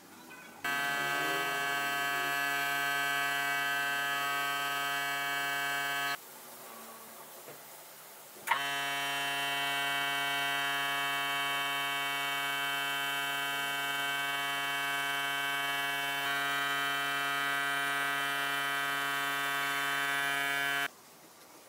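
Small portable electric air compressor running with a steady buzzing hum while it feeds a spray gun. It cuts out about six seconds in, starts up again a couple of seconds later, and stops shortly before the end.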